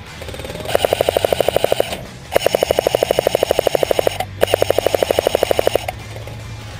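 Airsoft machine gun firing three full-auto bursts of a second or two each, at about thirteen shots a second. Its user can't tell whether it is actually putting out BBs and suspects the magazine isn't feeding.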